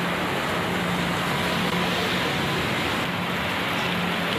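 Heavy rain falling steadily on a road and rooftops, a constant hiss, with a low hum under it that drops out briefly a couple of times.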